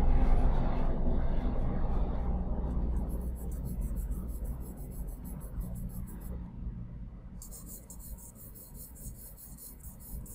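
Charcoal pencil scratching on layout paper in quick repeated shading strokes. A low rumble at the start fades away over the first few seconds.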